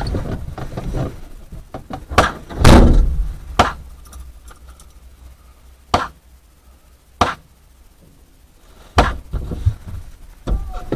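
About six sharp bangs at irregular intervals, the loudest with a short echo about three seconds in.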